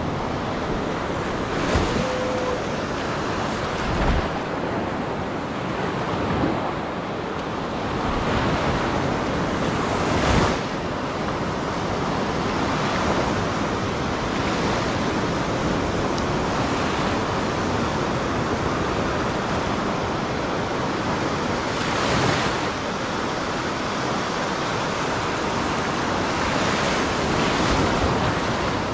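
Ocean surf breaking and washing up a beach: a steady rush of waves, with wind on the microphone and a few brief thumps.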